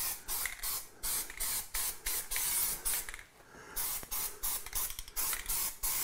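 Aerosol can of Zinsser BIN shellac primer spraying in short hissing bursts, several a second. It gives a longer spray about two seconds in, spot-priming filled patches so they won't show through the paint.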